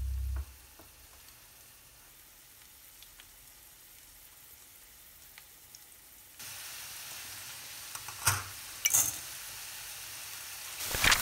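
Garlic cloves sizzling in oil in a frying pan: a steady hiss that starts suddenly about six seconds in, with a few sharp clatters around eight and nine seconds. Before it there is only faint room sound with a few light ticks.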